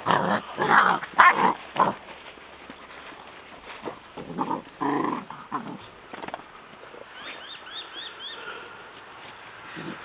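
Seven-week-old foxhound puppies growling and yapping in play, in short bursts: several in the first two seconds and another round about four to five seconds in.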